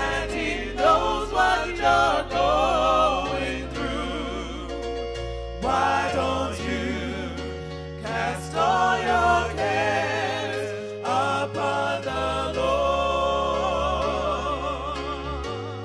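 Gospel music: singing with vibrato in phrases over held low bass notes.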